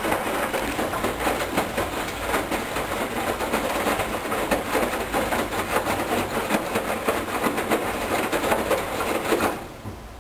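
Hoover Dynamic Wash washing machine drum turning wet laundry through rinse water, a busy sloshing clatter that stops suddenly near the end as the drum pauses during the final rinse.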